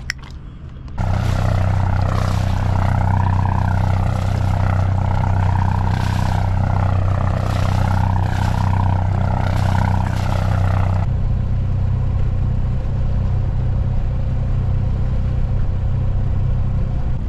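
Sailboat's inboard engine running steadily while motoring, heard close to its wet exhaust outlet in the hull side, which spits cooling water and smoke with a rough, fluttering splash over the engine hum. About ten seconds in the exhaust splashing cuts off and the engine's steadier, quieter running sound carries on.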